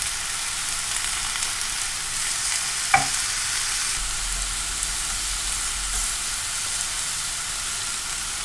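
Thin slices of beef sizzling in a hot oiled cast-iron pan as they are laid in and turned with tongs, a steady frying hiss with one brief tap about three seconds in.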